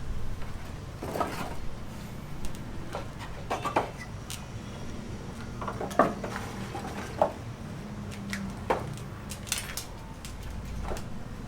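Scattered light clinks and knocks, a dozen or so at uneven intervals, over a low steady rumble.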